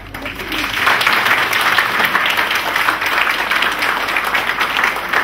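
An audience applauding: many people clapping together. The applause swells over the first second and then holds steady.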